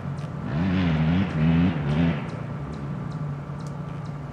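Kawasaki Prairie 360 ATV's single-cylinder four-stroke engine revved in a few short blips from about half a second to two seconds in, then settling back to a steady idle.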